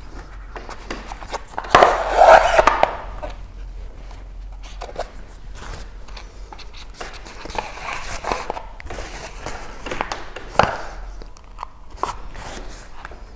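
Kayak skin fabric rustling and scraping as it is handled and hand-stitched at the bow, with thread being drawn through the cloth. The loudest rustle comes about two seconds in, followed by several shorter rustles and light clicks.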